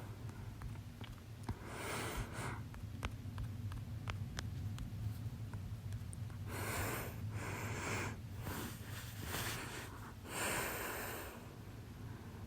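A person with hiccups breathing loudly through the nose and sniffing: one breath about two seconds in, then a run of breaths in the second half. A steady low hum runs underneath.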